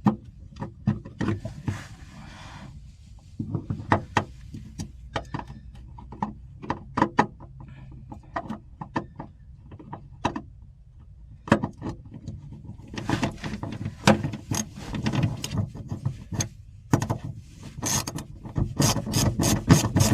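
Hand tools working nuts and bolts: scattered metal clicks and clinks that grow busier about two-thirds of the way through, then a fast, even run of ratchet-wrench clicks near the end as a nut is run down.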